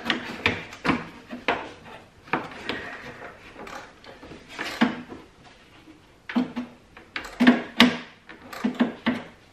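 Irregular metallic clicks and knocks of hand tools working 13mm strut top-mount bolts, with a denser run of louder knocks near the end. The nuts under the bolts are no longer held captive.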